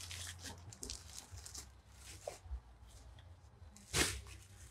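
Faint rustling and crinkling of packaging as items are handled, with one louder rustle about four seconds in.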